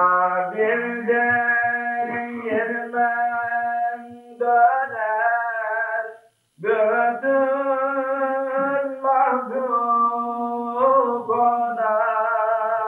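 A man singing a Turkish religious hymn solo, in long, ornamented held notes with a wavering pitch; one phrase ends about halfway through, and after a short breath a second phrase begins.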